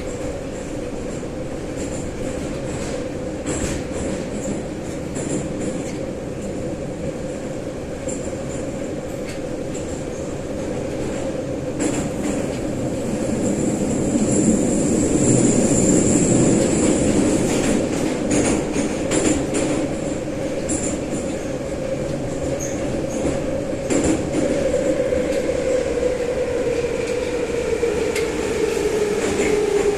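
81-717/714 'numbered' metro train heard from inside the car while running between stations: a steady motor hum that drops in pitch over the last few seconds as the train slows, with scattered sharp clicks and rattles from the wheels and car body.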